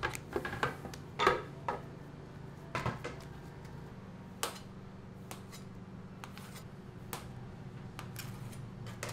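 Scattered clinks and knocks of kitchenware and utensils at a food stall, bunched in the first few seconds with the loudest about a second in, then occasional ticks, over a steady low hum.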